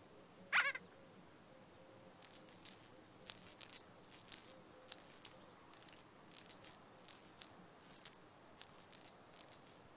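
A short wavy rising squeak, then from about two seconds in a shaken rattle sound effect in quick pairs, roughly two shakes a second.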